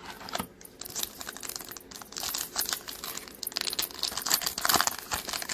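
Trading card pack wrapper crinkling as it is torn open, a dense crackle that grows louder over the second half, after a few light clicks.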